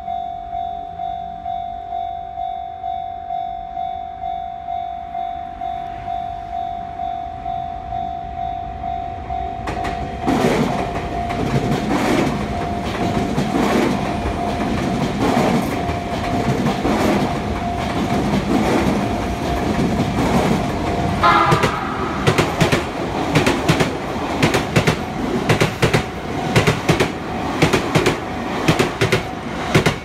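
A Japanese level-crossing alarm rings steadily, pulsing about twice a second. About ten seconds in, a navy Sotetsu 9000-series electric train passes close by, with loud rail noise and the rapid clickety-clack of its wheels over the rail joints. A short rising tone sounds about twenty seconds in.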